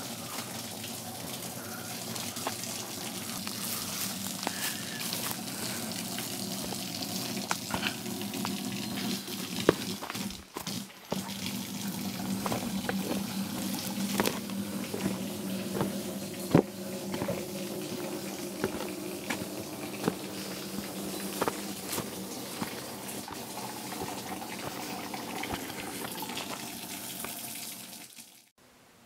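Water rushing steadily in a mountain stream, with irregular footsteps and clicks of a hiker walking on the trail and wooden footbridge planks.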